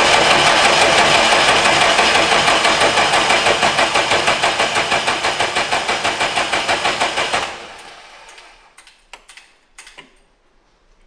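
Starter cranking a Cummins 3.8-litre four-cylinder diesel in even, rapid pulses for about seven and a half seconds without the engine firing, then stopping, followed by a few faint clicks. The engine does not start, a failure the crew puts down to a fuel system that still needs bleeding.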